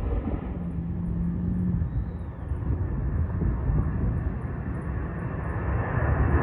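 Jet airliner climbing out after takeoff: a steady low rumble of its engines that grows louder near the end.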